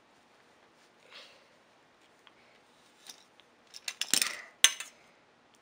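Copper pipe being cut with a small tubing cutter: a faint scrape about a second in, then a cluster of clicks and metallic scraping about four seconds in, ending with a sharp ringing clink of copper.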